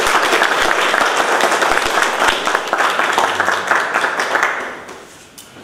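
Applause: many hands clapping together, dying away near the end.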